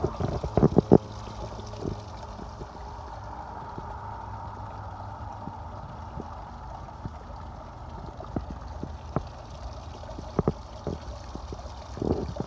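Steady running, trickling water over a low hum, with a few sharp knocks in the first second and again near the end.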